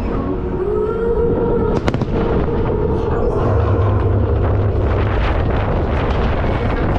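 Fireworks display: a continuous low rumble of bursting shells with dense crackling throughout, and one sharp bang about two seconds in.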